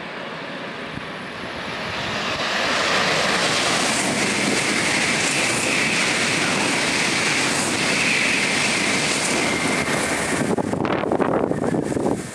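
Shinkansen 300 series high-speed train passing at speed: a rushing roar that swells over a couple of seconds, holds steady with a high whine, then falls away abruptly as the train clears, about eleven seconds in.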